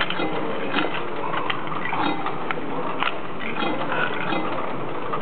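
Coins being dropped one at a time into a vending machine's coin slot, each giving a short click or rattle through the coin mechanism, over a steady background din.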